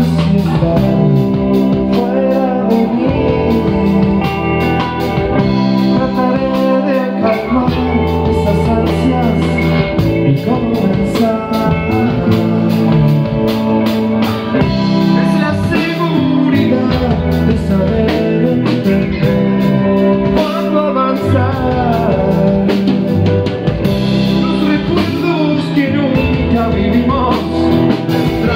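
Live rock band playing: Telecaster-style electric guitar, electric bass and drum kit, in a rhythm that blends rock with Argentine chacarera.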